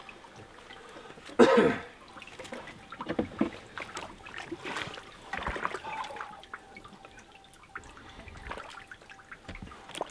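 A man coughs once, loudly and briefly, about a second and a half in. Otherwise light clicks and knocks of hands working in a pickup's engine bay, with a faint trickle of water.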